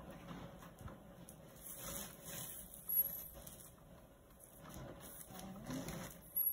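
Faint rustling and crinkling of a plastic ultrasound probe cover being handled with gloved hands. Two short, sharp clicks or taps stand out, one about three seconds in and one at the very end.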